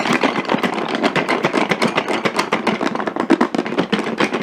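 A lidded plastic tote full of wooden utensils soaking in oil being shaken back and forth: the utensils clatter against each other and the plastic box in a rapid, continuous rattle.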